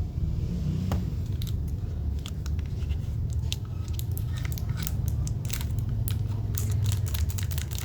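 Scattered small clicks and crinkling of packaging being handled as a boxed Zippo lighter is unpacked, over a steady low background rumble.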